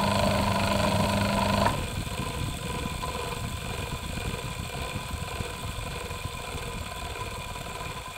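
Old single-phase electric motor running unloaded on a bench with a steady hum. It is switched off about two seconds in and spins down with an uneven low rumble that slowly fades. It sounds rough, the sign of a worn, unsmooth motor due for replacement.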